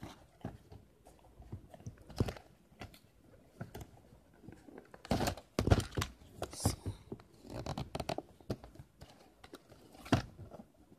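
Cardboard and plastic packaging of a Beyblade Burst toy box being handled and opened: irregular taps, scrapes, crinkles and rustles, busiest a little past halfway through.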